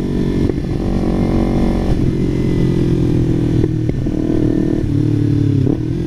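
Kawasaki Ninja 300 parallel-twin with a Yoshimura full exhaust, ridden at steady revs in a low gear, its note changing briefly about two and four seconds in, with wind rumble on the helmet microphone.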